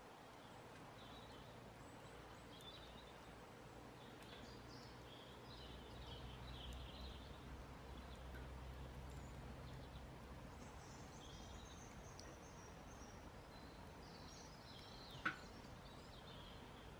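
Faint ambience of a wood fire burning in a fire pit, with a few faint crackles and one sharp pop about fifteen seconds in. Faint high chirping comes and goes over a low hum.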